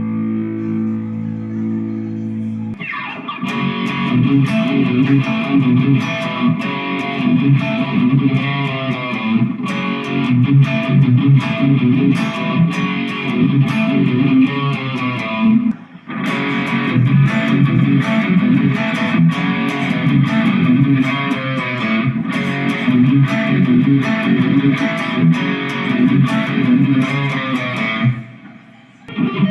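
Harley Benton Les Paul-style electric guitar played: a held chord rings for the first few seconds, then a fast passage of picked notes, with a short break midway and the playing stopping near the end.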